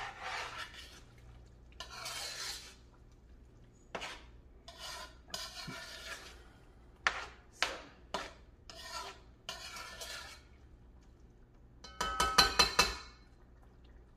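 Metal spoon stirring thick curry in a metal pot, a run of scraping, sloshing strokes against the pot. Near the end a quick run of sharp metallic taps rings out, the loudest sounds here.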